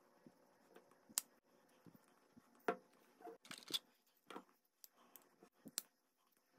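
A run of short, sharp plastic clicks and snaps from an Insta360 GO 2 action camera, its flip-open charging case and mount being handled and fitted together, with light handling noise between. The loudest clicks come about a second in and near the three-second mark.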